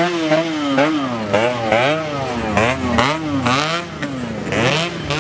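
Yamaha RX-King 135 cc two-stroke motorcycle engines revved hard in quick, repeated throttle blips, the pitch climbing and dropping over and over, with more than one engine going at once.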